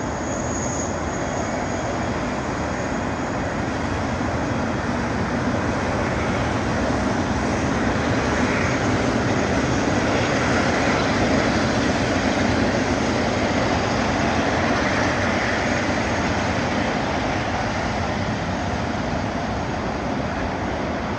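Airbus A380-841's four Rolls-Royce Trent 970 jet engines running at taxi power as the airliner turns onto the runway: a steady rushing noise that swells a little in the middle and eases slightly near the end.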